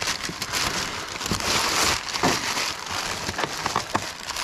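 Crumpled packing paper crinkling and rustling as hands pull it out of a cardboard box, a continuous irregular crackle.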